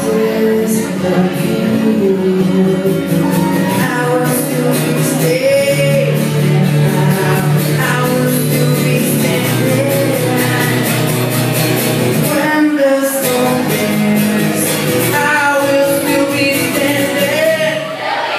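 Live song: a man singing into a microphone over a strummed acoustic guitar through the PA, with a brief break in the music about two-thirds of the way through.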